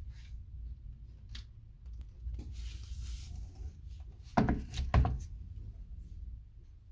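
Handling sounds: a brief rubbing, then two loud knocks about half a second apart.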